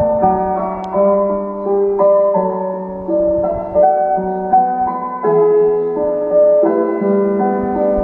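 Municipal disaster-prevention radio chime sounding the noon time signal: a town melody played loudly over a TOA outdoor public-address loudspeaker, a tune of held notes over a lower accompanying line.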